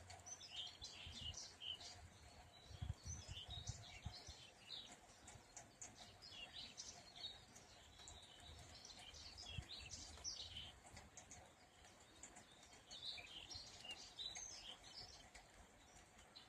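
Small songbirds chirping and twittering in quick, scattered bursts, faint against a quiet rural background, with a soft low rumble in the first few seconds.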